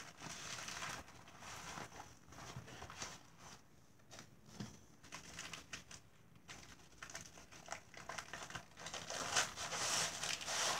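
Plastic packaging bags crinkling and rustling as they are handled and folded, in irregular bursts, loudest near the end.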